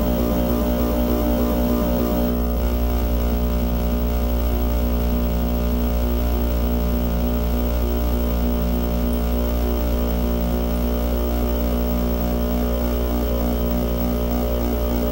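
Electronic noise drone: a dense stack of sustained low tones under a high hiss, holding steady without any beat. The hiss thins slightly about two seconds in.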